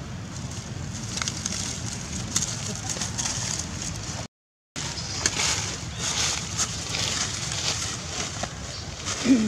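Dry fallen leaves rustling and crackling over a steady low hiss, with a short dropout about halfway. A brief low-pitched sound, the loudest moment, comes near the end.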